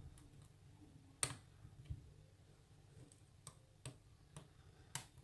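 Faint, sparse clicks of a lock pick working the stock pin tumblers of a rim cylinder lock under clockwise tension, about seven in all, the sharpest about a second in and near the end.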